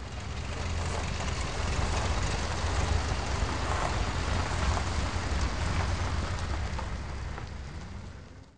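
Pickup truck engine running with a steady low rumble and a noisy hiss, fading in at the start and fading out near the end.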